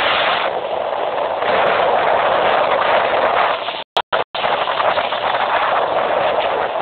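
Loud, steady rush of wind buffeting the phone's microphone aboard a fast-moving speed boat, with the sound cutting out for a moment about four seconds in.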